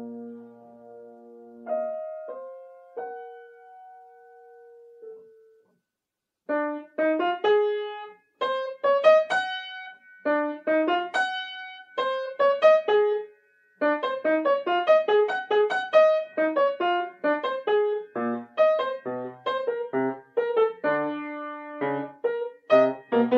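Solo piano playing a passage from an étude. A few held notes ring and fade, then after a short pause about six seconds in come quick, detached notes in the treble, with low bass notes joining near the end.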